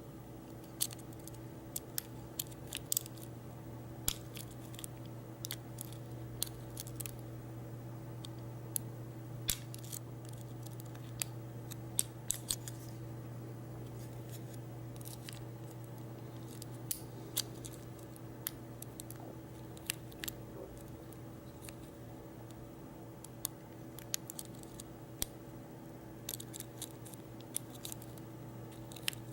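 Light metallic clicks and scrapes of a lock pick and tension wrench single-pin picking a Master Lock 570 padlock, coming irregularly, every second or so, over a steady low hum.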